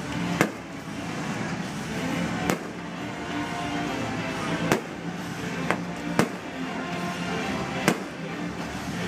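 Fireworks shells bursting with sharp bangs, six in all at uneven intervals, over steady background show music.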